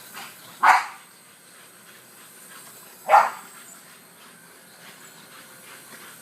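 Boxer dog barking twice, about two and a half seconds apart.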